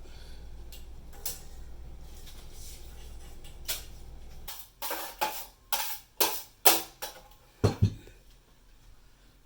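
A low steady hum stops about four and a half seconds in. Then come six quick, sharp clinks, as of metal parts or tools being handled, and near the end two heavier knocks.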